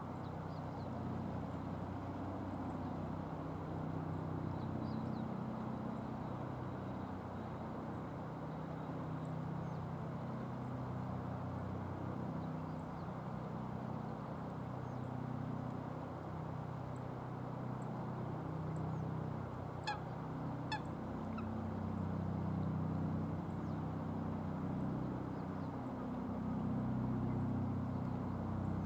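A low, steady engine drone whose pitch wavers slowly. Two short clicks come about two-thirds of the way through.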